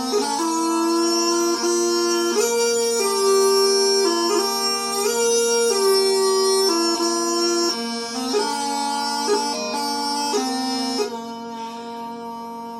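Scottish smallpipes playing a slow tune of held chanter notes over steady drones, with the pitch varying a lot. About eleven seconds in, the chanter stops and only the drones sound, a little quieter.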